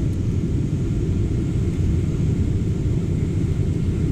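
Steady low rumble of cabin noise inside a Boeing 777-300ER airliner on approach to landing.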